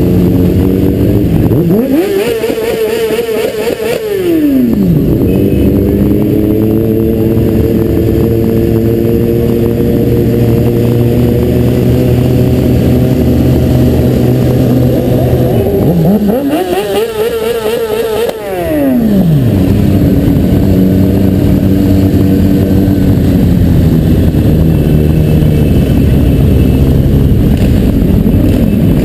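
Motorcycle engines running at slow parade pace, heard onboard the rider's bike. Twice, about two seconds in and about sixteen seconds in, an engine revs up, holds, and drops back down over about three seconds.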